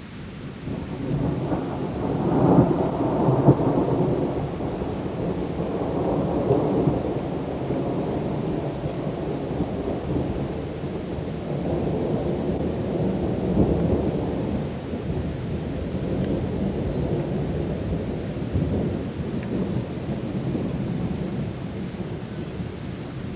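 A long peal of rolling thunder: it builds about a second in, is loudest a couple of seconds later, then rumbles on in swells and slowly eases, over the steady hiss of rain.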